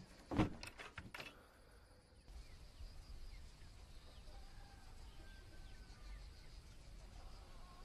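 A wooden door shutting with a single thump about half a second in, with a few lighter clicks after it. Then faint ambience with a few faint chirps.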